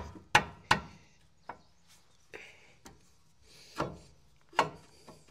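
Metal brake caliper knocking and clacking against the new pads and caliper bracket as it is worked on over them by hand. There are three sharp knocks in the first second, a lighter one after, and two more in the second half.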